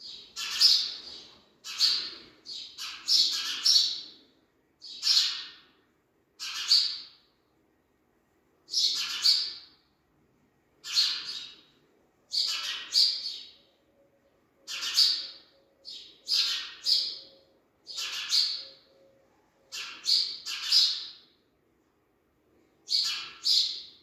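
Fledgling house sparrows chirping, one short, high chirp every second or two, with two brief pauses.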